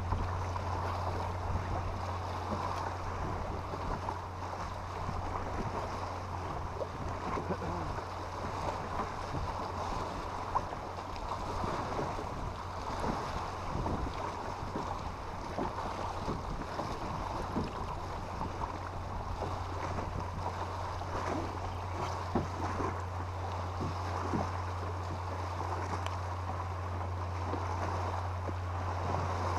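Boat motor running steadily with a constant low hum while trolling, under the splash of choppy water against the hull and wind on the microphone.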